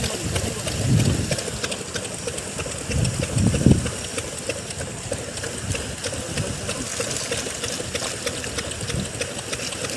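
A small engine running steadily with a fast ticking clatter, and a couple of dull thumps about one second and three and a half seconds in.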